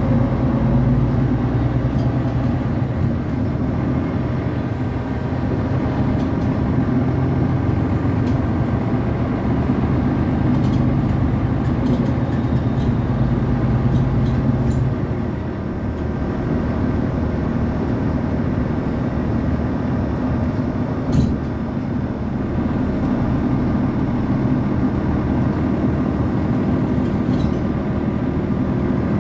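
Inside a Mercedes-Benz articulated city bus while it drives: a steady drivetrain hum with road noise. About halfway through, the hum's strongest low note drops away and the sound eases briefly, then steady running continues, with a single knock a few seconds later.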